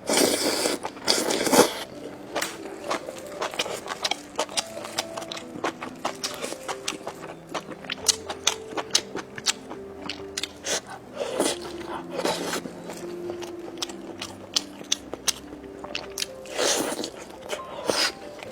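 Close-up crunching and chewing of fried skewer food: many sharp crisp crunches, with three louder bites at the start, in the middle and near the end. Soft background music plays underneath.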